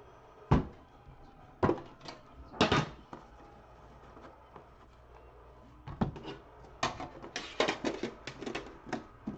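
A sports-card box being handled and opened by hand: a few sharp knocks in the first three seconds, then a quick run of clicks and taps from about six seconds in as the contents are lifted out.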